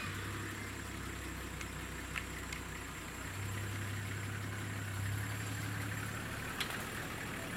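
Vehicle engine idling steadily with a low hum, just after being started; its note shifts slightly about three seconds in.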